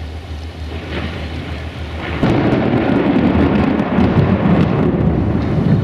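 Thunder: a sudden loud clap about two seconds in that rolls on as a heavy rumble, over the low steady drone of an idling diesel locomotive.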